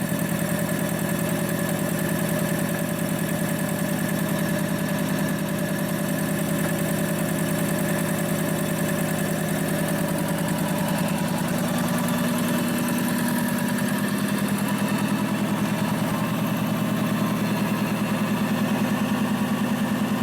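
Freshly rebuilt DeVilbiss DevAir 445 two-stage industrial air compressor running steadily with a rapid, even pulsing, pumping up its tank pressure. It runs with much less clatter and rattle than before the rebuild.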